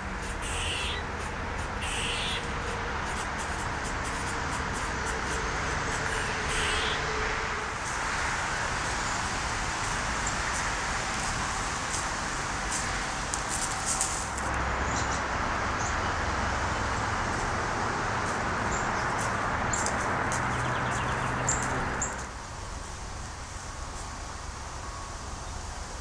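Steady rushing roar of nearby interstate traffic, with a few short bird calls in the first several seconds. The roar drops noticeably about three quarters of the way through.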